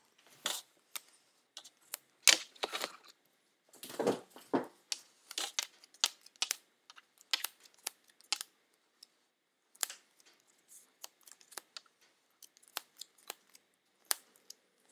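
Small paper cards being handled and laid down one by one on a tabletop: scattered light taps and brief paper rustles, with a longer rustle about two seconds in and another about four seconds in.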